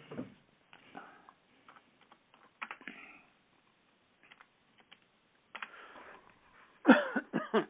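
Computer keyboard typing in short, irregular bursts of clicks, with a brief voice near the end.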